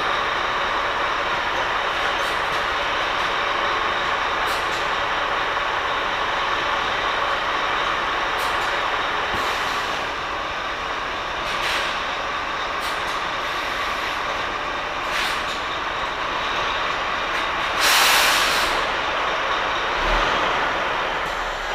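Lorry engine running steadily while the truck reverses, with a few short air hisses and a louder burst of air-brake hiss about eighteen seconds in.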